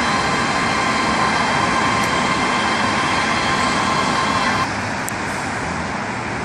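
Road traffic on a multi-lane street: cars driving past with a steady rush of tyre and engine noise, a little quieter after about four and a half seconds.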